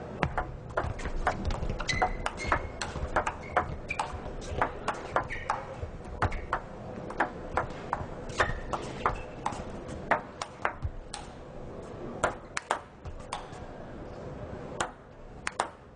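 Table tennis ball clicking off the bats and the table in quick rallies, several hits a second, thinning out to a few scattered bounces in the last few seconds.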